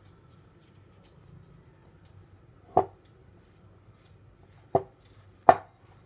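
Three sharp knocks as risen yeast dough is punched down by hand in a glass mixing bowl, the bowl knocking on the wooden board; the last knock is the loudest.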